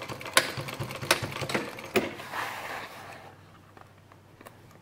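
Industrial sewing machine stitching a zip into awning fabric at a fast, even clatter, with a few sharper clicks; it slows and stops about three seconds in.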